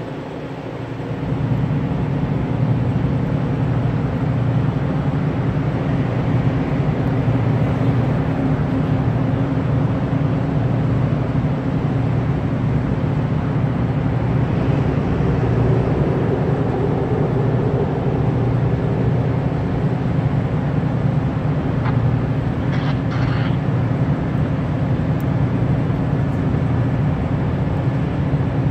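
Diesel freight locomotives (GE AC44CWs and an ES44AC) working hard at full throttle, a steady low engine drone that swells about a second in as the heavy train approaches from a distance. A few brief high squeaks come late on.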